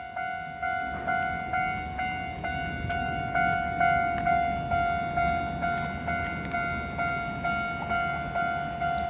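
Railway level-crossing warning bell ringing in a steady rapid rhythm, about two strikes a second, each ring fading before the next.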